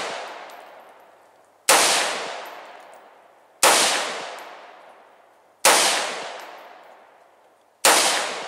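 A 5.56 AR-style rifle fired in slow, aimed shots: four shots about two seconds apart, each with a long echo fading away, and the tail of an earlier shot dying out at the start.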